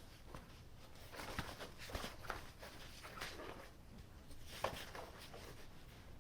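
Faint, irregular soft taps and rustles, a few light knocks scattered through, in a quiet small room.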